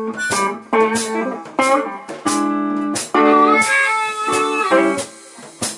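Blues harmonica break played into a hand-held microphone over a picked blues guitar, with a few notes bent in the second half.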